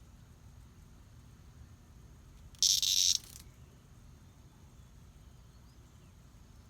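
A loud, short hissing buzz lasting just under a second, about two and a half seconds in, over a faint low rumble.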